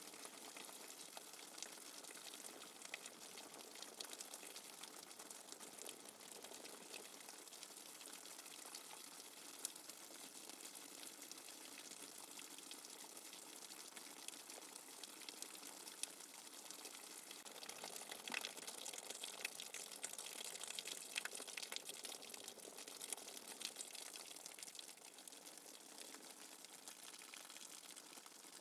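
Steady rain without thunder, a dense hiss of falling water with many fine drop ticks, a little heavier about two-thirds of the way through.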